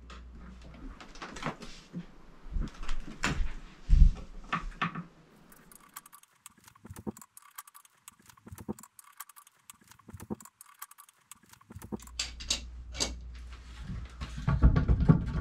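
Scattered metal clinks, taps and knocks as a bottle jack holding up the floor framing is released, with one louder knock about four seconds in.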